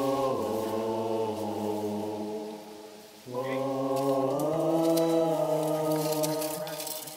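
Several voices chanting together in long held notes, like a choir intoning a mantra. One phrase fades away over the first three seconds and a new one starts just past three seconds in, stepping up in pitch about a second later.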